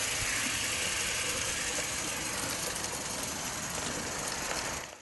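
Steady hissing noise with faint ticking through it, fading out near the end.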